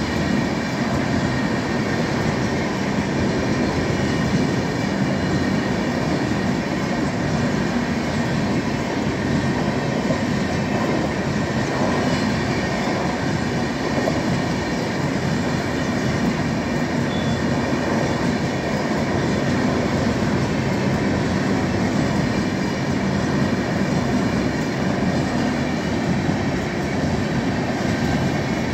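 LHB passenger coaches rolling past close by, a steady rumble of steel wheels on the rails that holds level throughout.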